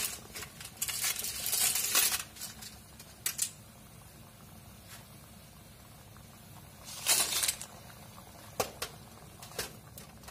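A utensil scraping and knocking in a wok of simmering sauce, with a longer clatter about seven seconds in as boiled clams in their shells slide off a perforated skimmer into the wok. A few single clicks fall in between.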